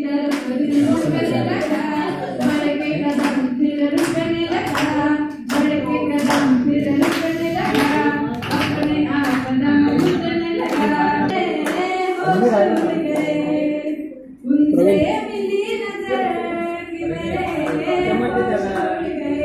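A woman singing a song into a microphone, unaccompanied, while the audience claps steadily in time, about two claps a second. The singing breaks off briefly about two-thirds of the way through, then resumes.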